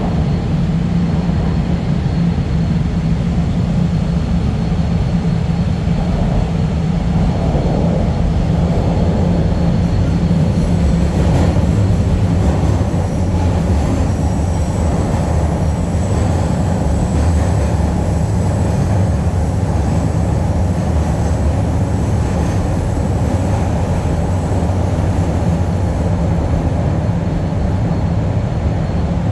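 Inside a Chicago Transit Authority Blue Line subway car running through the tunnel between stations: a steady, loud rumble of wheels on rail and traction motors.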